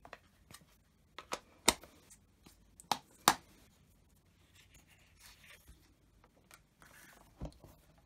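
Several sharp plastic clicks and clacks from handling a Stamparatus stamp-positioning platform and its magnets as the stamped card is released and lifted out, followed by a soft rustle of paper.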